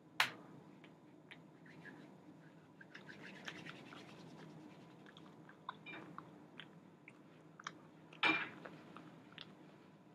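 Faint scattered clicks and scratchy rubbing close to the microphone, with a sharp click at the very start, a flurry of small ticks a few seconds in and a louder scrape about eight seconds in.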